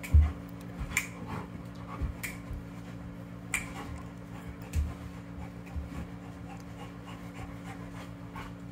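A dog panting, with a few scattered sharp clicks and short low thumps over a steady low hum.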